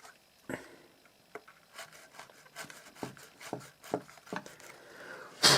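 Hand rasp scraping leather in short strokes, about two a second, thinning the leather so a rivet can be countersunk; one louder stroke near the end.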